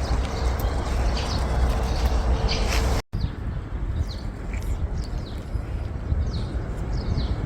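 Small birds chirping, a run of short falling chirps in the second half, over a steady low rumble. The sound drops out completely for a moment about three seconds in.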